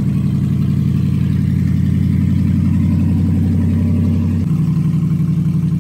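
Dodge Ram 1500 pickup engine idling loudly and steadily, its exhaust unmuffled because the catalytic converters have been cut out. The low tone drops a little about four and a half seconds in.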